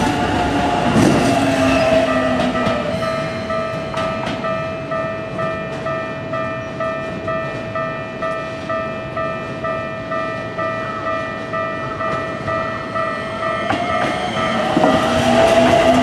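Japanese level-crossing alarm ringing in an even repeated pattern, about two strokes a second, while a Keikyu 2100-series electric train runs away past the crossing in the first couple of seconds. Near the end the next 2100-series train comes up, louder, its traction motors whining upward in pitch.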